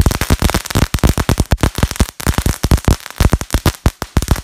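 A string of Chinese firecrackers (鞭炮) going off in a rapid, uneven volley of sharp bangs.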